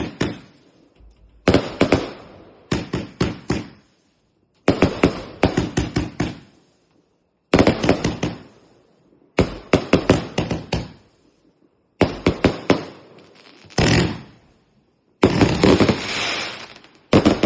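Fireworks going off in clusters of several sharp bangs in quick succession, a new cluster every two seconds or so, about nine in all.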